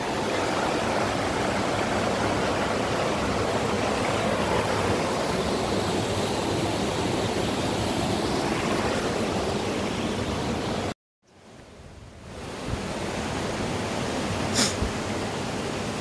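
Shallow rocky stream rushing steadily over stones and small cascades. The sound cuts out abruptly about eleven seconds in, then fades back in a second or two later.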